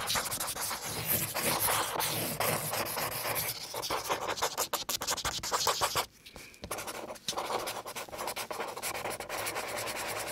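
Pen scratching on paper as a plastic spirograph gear is rolled around inside a toothed ring, with many small clicks and a brief pause about six seconds in.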